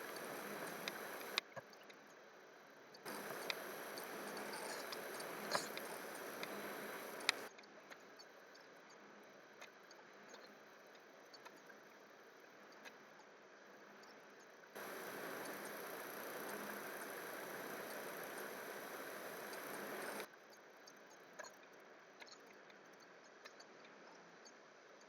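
Faint steady hiss that cuts in and out abruptly three times, with a few sharp isolated clicks.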